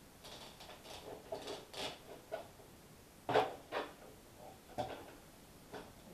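Knife and pike handled on a plastic cutting board during filleting: scattered light taps and scrapes, with sharper knocks about three and a half seconds in and again near five seconds.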